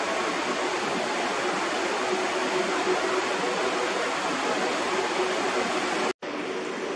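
Steady rushing noise with a faint, even hum, typical of a cruise ship's deck ventilation and air moving past the microphone. It drops out for an instant about six seconds in and then carries on at the same level.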